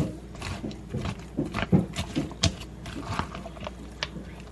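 Irregular clicks and knocks of a kitchen utensil against cookware, several a second, with no steady pattern.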